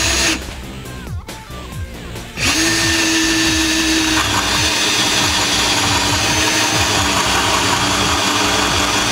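Power drill spinning a bi-metal hole saw on a mandrel jig, cutting a miter into the end of a bamboo tube. It runs briefly, eases off for about two seconds, then runs steadily under load, its pitch dipping slightly about four seconds in.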